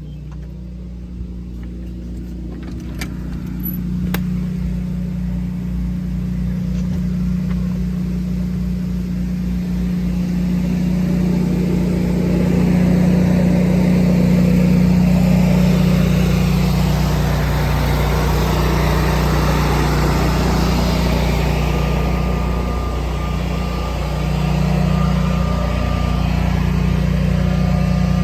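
24 kW Generac home standby generator running steadily with a loud, even engine hum, powering the house during a utility outage. It grows louder over the first dozen seconds, then holds steady.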